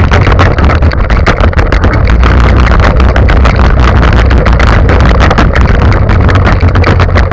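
Go-kart on the move: its engine running steadily under a constant rattle and clatter of the frame and camera mount, loud enough to distort.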